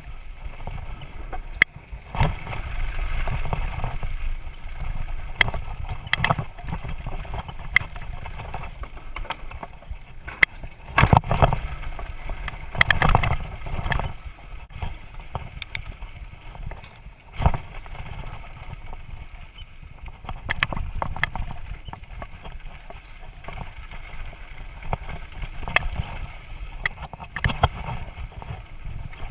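Downhill mountain bike running fast down a dry dirt trail: a steady rumble of wind on the microphone and tyres on dirt, broken by frequent sharp clatters and knocks from the bike over bumps and rocks. The ride gets rougher and louder about two seconds in and again around eleven to fourteen seconds.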